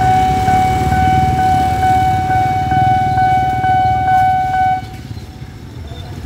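Railway level-crossing warning alarm sounding a loud, steady electronic tone that pulses a little over twice a second, then cuts off about five seconds in as the barrier lifts and the crossing clears. A low rumble of waiting motorcycle engines runs underneath.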